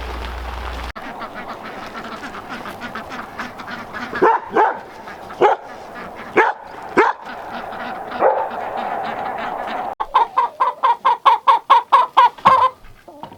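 Ducks quacking. A handful of loud single quacks over a steady background noise, then a fast run of about a dozen quacks in a row.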